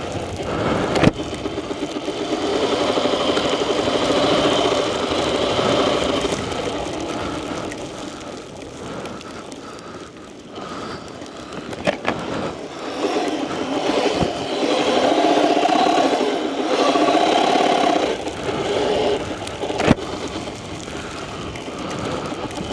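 Sur Ron electric dirt bike's motor whining, swelling and easing in stretches as the throttle changes, with a few sharp knocks.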